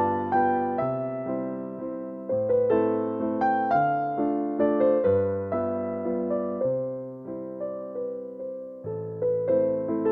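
Gentle solo piano background music: a calm melody over slow, sustained chords, each note struck and then fading.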